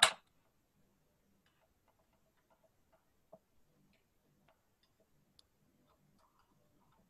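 A knife cutting a baked lentil roast in a glass baking dish, giving a few faint, sparse clicks against the glass, the clearest about three seconds in and another about five seconds in; otherwise near silence.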